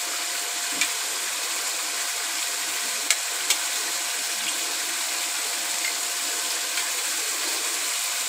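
A steady hiss, with a few light, sharp clicks of eggshells being cracked over a bowl.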